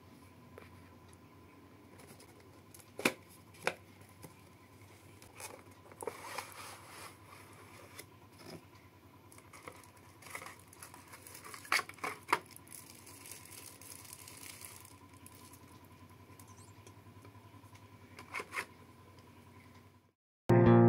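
Unboxing handling: the flaps of a small cardboard box click and tap, and a plastic bag rustles as a phone cooler is pulled out of its packaging. Guitar music comes in suddenly near the end.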